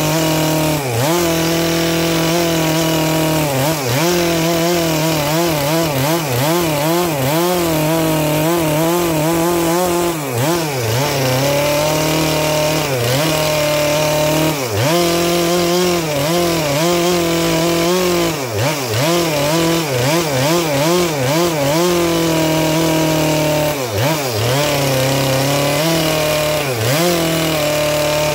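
Stihl MS 462 two-stroke chainsaw with a 25-inch bar ripping lengthwise through a dried Manchurian walnut log, running under load without a break. The engine pitch wavers constantly as the chain bites and dips briefly several times.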